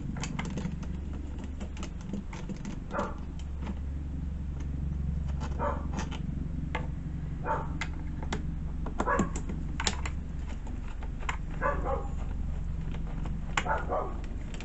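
A dog giving short barks or yips every second or two over a steady low hum, with light clicks in between.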